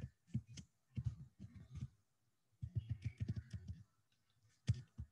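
Computer keyboard keys being typed: quick clusters of light clicks and knocks, broken by short pauses.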